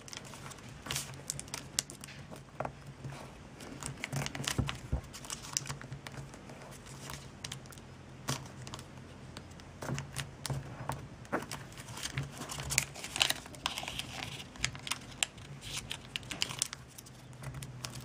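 A sheet of origami paper being folded and creased by hand: irregular crinkles and crackles as flaps are lifted, folded over and pressed flat.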